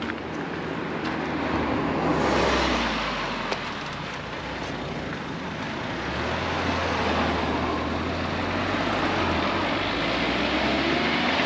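A car passes close by about two seconds in, its engine and tyre noise swelling and then fading up the road. From about six seconds another car's engine and tyres grow louder and stay close.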